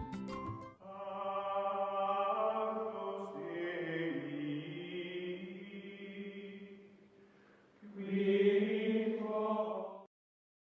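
Outro music of long held, chant-like chords: one chord that shifts pitch about four seconds in and fades, then a second held chord that cuts off suddenly near the end.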